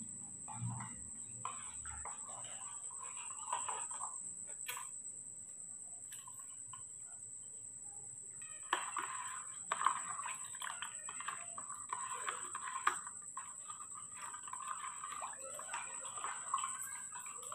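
Faint, broken animal calls in runs: a short stretch at the start, then a longer, busier stretch from about nine seconds in. A steady high-pitched whine runs underneath.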